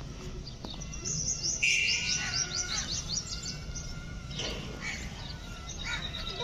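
Bird chirping: a quick run of short, high, falling notes about a second in, then a few fainter calls.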